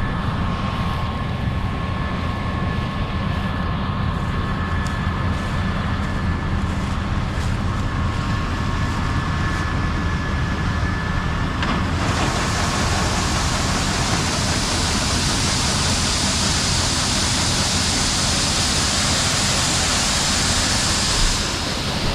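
Combine harvester's engine running steadily under load, with a steady whine. About halfway through, a loud hiss joins in and eases off shortly before the end.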